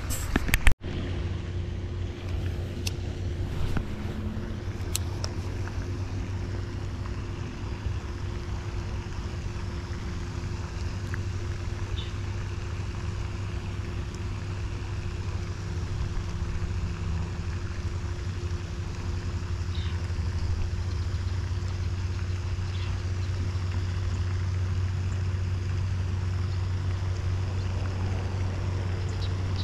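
A steady low mechanical hum, like a motor running, that grows a little louder in the second half. A brief knock sounds under a second in.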